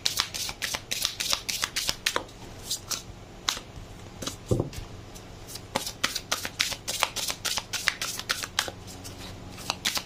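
A deck of large oracle cards being shuffled by hand, the card edges flicking in quick, uneven clicks several times a second, with one duller knock about four and a half seconds in.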